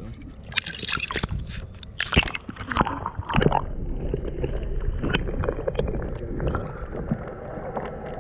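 Muffled water sound picked up by a camera held just under the surface: sloshing and gurgling with a steady low rumble and scattered short clicks and knocks.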